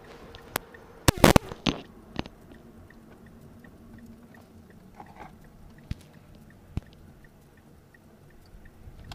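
Muffled running noise picked up by a camera mounted on the body of a moving car, with a quick burst of sharp knocks about a second in and a few single clicks later.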